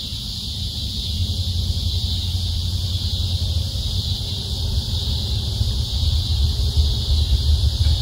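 A steady, high-pitched chorus of insects, with a low rumble building gradually louder underneath.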